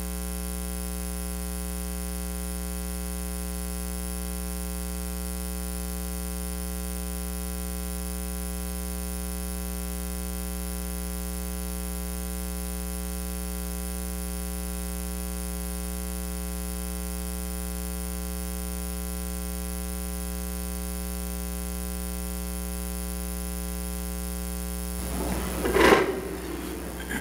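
Steady electrical mains hum, a buzz with many overtones, at an even level. Near the end comes a burst of clatter and knocks as chairs are pulled out and people sit down at the table.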